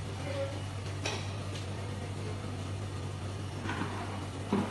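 Wet mop swishing over a tiled floor, then pushed down into a plastic mop bucket's wringer near the end, over a steady low hum.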